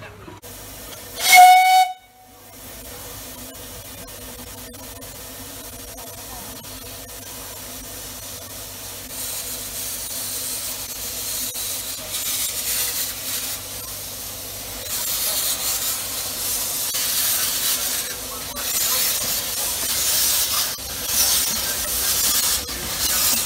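A short, shrill steam whistle blast about a second in, the loudest sound, from a narrow-gauge Kitson-Meyer-type 0-4-0+0-4-0T steam tank locomotive. Then steady steam hissing from around the cylinders as the engine draws in, growing louder and turning into uneven puffs in the second half.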